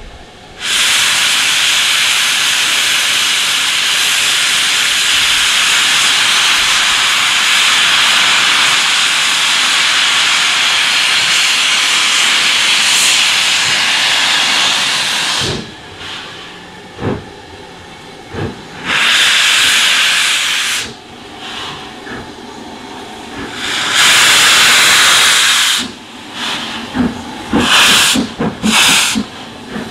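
LMS Princess Coronation class 4-6-2 No. 6233 Duchess of Sutherland letting off steam in one long, loud hiss that cuts off after about fifteen seconds. Shorter hisses follow, then a quick series of short steam blasts near the end from the open cylinder drain cocks.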